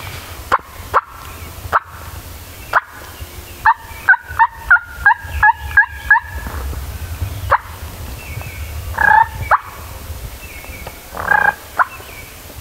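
Wild turkey calling: a few sharp single clucks, then a quick run of about eight yelps, then two louder, fuller calls from a gobbler about nine and eleven seconds in.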